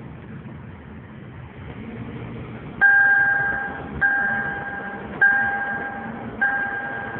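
2007 Toyota Camry's seatbelt reminder chime, sounding four times about 1.2 seconds apart from about three seconds in, each ding fading out. It warns that the driver is unbuckled while the car is moving. Under it is a low engine and road hum inside the cabin.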